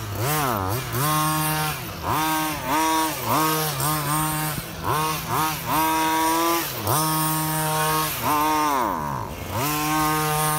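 Redcat Rampage XR Rally 1/5-scale RC car's two-stroke gas engine revving up and falling back again and again as the throttle is blipped, the pitch swinging up and down with each burst. The engine bogs down, which the owner puts down to fuel starvation from too small a vent hole in the gas cap.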